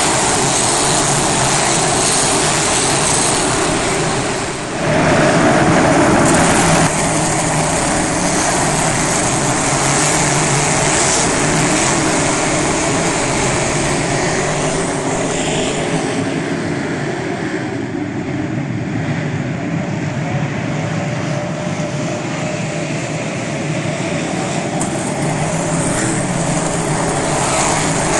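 V8 engines of a pack of dirt modified race cars running at racing speed, passing close by one after another. The sound is loudest about five seconds in, somewhat quieter through the middle, and builds again near the end as the field comes past.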